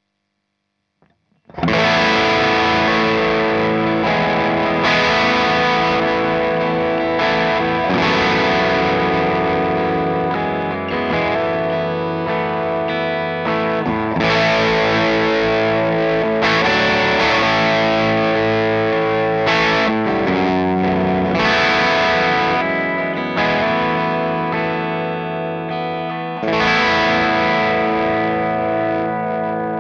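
Gibson Les Paul played through an AmS Tornado 20 valve head (two EL84 power valves) into a 1x12 cabinet with a Celestion Alnico speaker, with the gain turned up into a gritty crunch. Ringing strummed chords start about a second and a half in, with a fresh strong chord near the end that rings out and fades.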